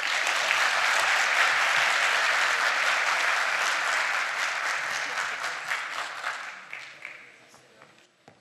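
Audience applause, steady for about six seconds and then dying away.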